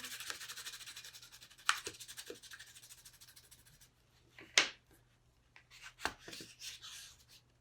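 Crayon scribbling back and forth on a paper plate in quick, scratchy strokes that thin out after a few seconds, with a sharper tap about four and a half seconds in.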